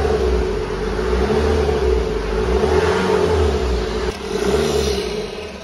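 BMW 520d F10's four-cylinder turbodiesel blipped up in revs three times, each time rising and falling back, and settling lower near the end. The engine had earlier run away on oil from a failed turbo; here it returns to idle each time instead of running away.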